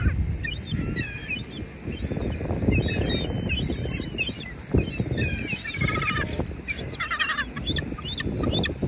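A flock of birds calling over and over, many short calls overlapping, with a low rumble of handling or wind noise on the microphone underneath.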